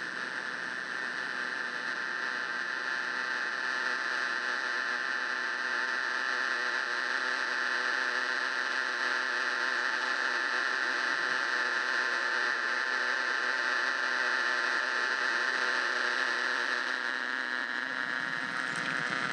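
Experimental electronic music made from heavily processed voice: a dense, steady buzzing drone with many held tones, strongest in the upper middle, slowly growing louder. Near the end a lower layer comes in and the texture shifts.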